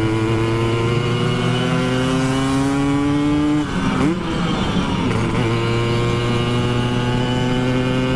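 Simson S51 moped's two-stroke single-cylinder engine, bored out to 70 cc, running hard under way with its revs slowly climbing. About three and a half seconds in the revs break off briefly, as at a gear change, then pick up and climb again.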